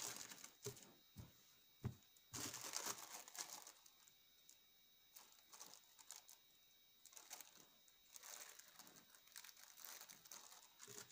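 Clear plastic packaging bag crinkling as hands handle it, in irregular bursts. The longest and loudest burst comes about two to three and a half seconds in, with a few short knocks among them.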